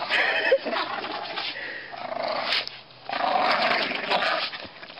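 Dogs growling as they bite and tug on a hanging rope, with a short pause a little past halfway.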